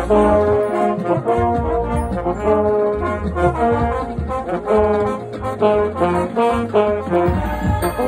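A marching band's trombone section playing a melody of changing notes over a low bass, heard from among the players.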